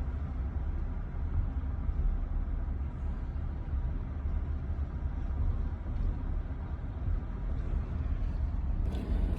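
Steady low rumble of a vehicle moving along.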